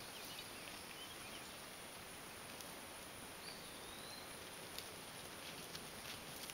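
Faint, steady outdoor background noise with a few soft clicks and one short high chirp about three and a half seconds in.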